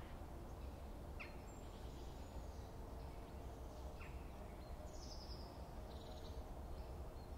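Faint outdoor ambience: a steady low rumble with a few distant bird chirps scattered through it.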